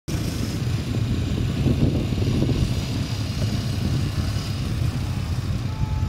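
Trail motorcycle engine running steadily as the bike rides past, a dense low rumble at an even level.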